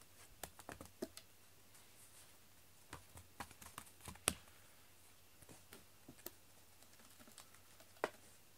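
Quiet, irregular light clicks and taps from a feather wand cat toy being flicked and dragged over foam floor mats, with the cat pawing at it near the end. The sharpest tap comes about four seconds in.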